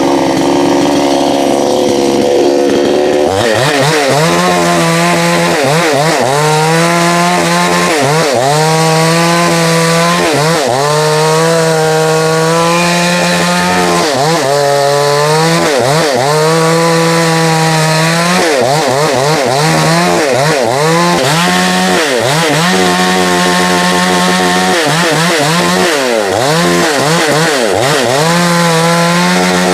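Gas chainsaw running loud, its engine pitch steady at first, then dropping and climbing again over and over, roughly every second or two, as the throttle is worked.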